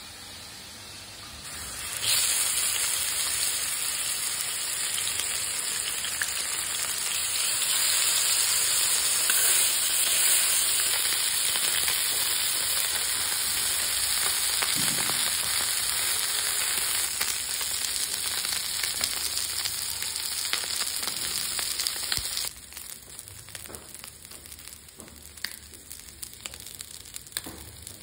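Whole blue spot mullet sizzling in hot oil in a pan. The loud sizzle comes in about two seconds in, runs steadily, then drops suddenly to a quieter crackle with scattered ticks about twenty-two seconds in.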